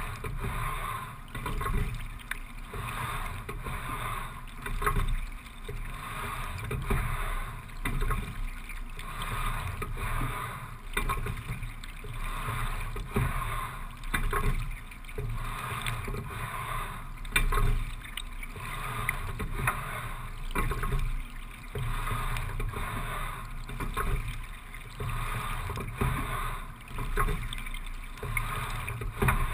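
Single racing scull being rowed at a steady low rate of 17–18 strokes a minute, the sound of each stroke coming round about every three and a half seconds over a continuous wash of water.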